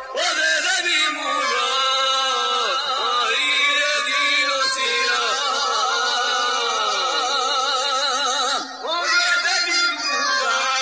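Men singing a Balkan izvorna folk song, the long held notes wavering with a strong, fast vibrato, with a short break about nine seconds in.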